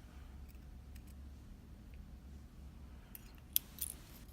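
Small metallic clicks and light scraping as pins are worked out of a Talon oval lock cylinder during gutting, with a quick cluster of sharper clicks near the end.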